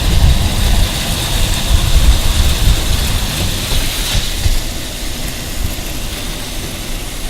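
Car driving, a steady low rumble of engine and road noise that eases off and gets quieter about four and a half seconds in.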